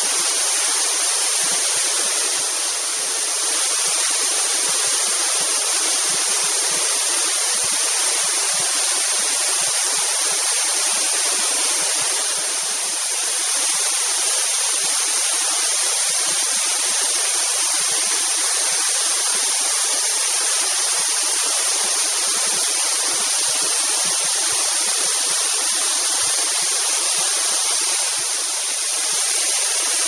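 Waterfall cascading down a steep rock face: a steady, unbroken rush of falling water, mostly high-pitched.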